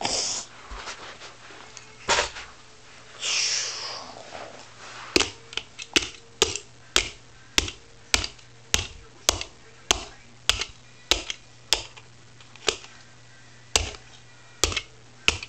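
A brief hiss about three seconds in, then a steady run of sharp clicks, about two a second.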